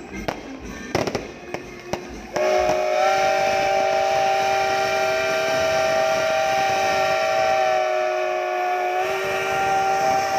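A few sharp cracks and bangs in the first two seconds, then a steam locomotive whistle blowing a steady chord of several notes, held for about seven seconds, dipping briefly near the end before sounding again.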